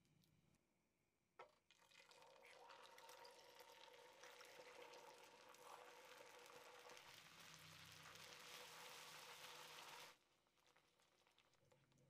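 Milk poured into hot caramel in a frying pan, the caramel sizzling and bubbling hard. It starts just after a sharp click about a second and a half in, runs for about eight seconds and cuts off suddenly.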